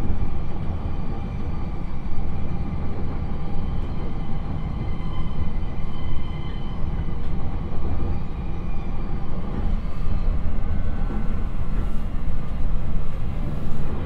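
JR East E129 series electric train running at about 60 km/h on continuous welded rail, heard inside the passenger car. The low rumble of the wheels is overlaid with the steady whining roar of freshly ground rail, a rail-grinding sound left by a grinding train's pattern on the railhead, with no joint clicks.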